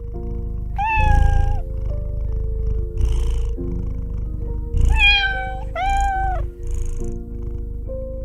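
Domestic cat meowing three times: one call about a second in, then two close together around five to six seconds in, each rising then falling in pitch, over a continuous low rumble and background music.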